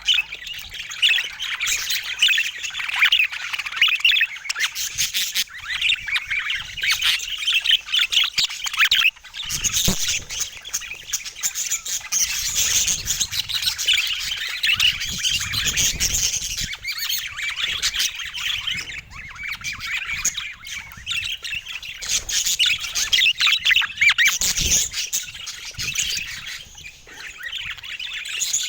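Budgerigars chattering and warbling continuously, a busy mix of chirps and squawks, with a few low thumps now and then.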